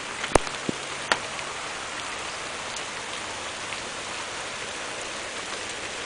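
Steady rain falling on grass and a paved driveway, an even hiss, with three sharp taps in the first second or so.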